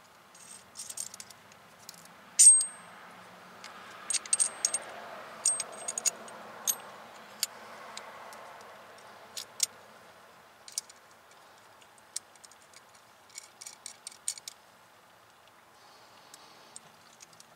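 Metal clicks and clinks of a brake-line flaring tool being handled, its clamp bar and adapters knocking together as a brake line is set in it. The clicks come scattered and irregular, the loudest about two and a half seconds in.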